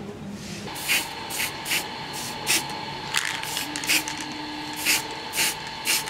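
Aerosol spray can spraying a finish onto a wooden sword handle in short presses, about nine quick hisses at uneven intervals.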